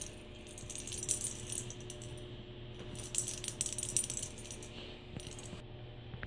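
A Persian kitten batting a hanging plastic jingle-ball cat toy, the bell inside rattling in bursts: at the start, again about three seconds in, and briefly after five seconds, then quieter.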